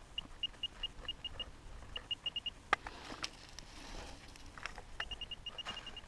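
A metal detector beeping in quick runs of short, high beeps at one steady pitch, the pulsing signal of a buried metal target close by. A few sharp knocks and scrapes of digging come between the runs.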